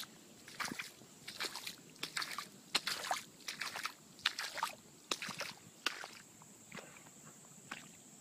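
Footsteps through soggy, waterlogged grass, about two steps a second, growing sparser and fainter after about six seconds.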